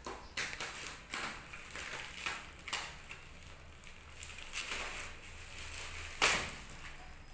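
Plastic parcel wrapping being torn open and crumpled by hand, in irregular crackles, the loudest a sharp one about six seconds in.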